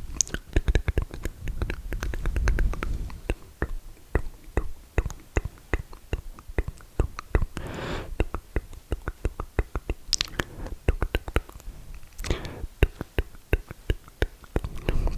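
Close-miked mouth sounds: rapid wet clicks and lip smacks, several a second, broken by a few breathy exhales of vape vapour, about two, eight and twelve seconds in.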